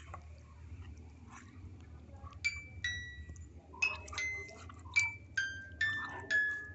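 A series of light metallic clinks, each strike ringing briefly at a different pitch, coming faster in the second half, over a faint low hum.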